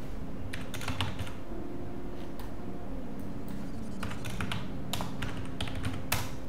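Computer keyboard typing: irregular key clicks in short runs as a search term is typed in, over a faint steady hum.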